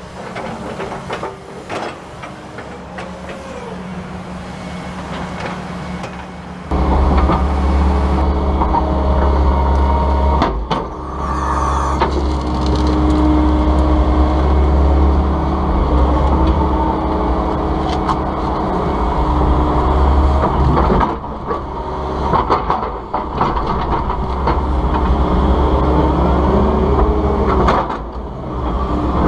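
Volvo ECR145EL excavator's diesel engine and hydraulics working, jumping much louder about a third of the way in as it comes under load. Scattered knocks and cracks of wood sound as trees and logs are pushed and handled.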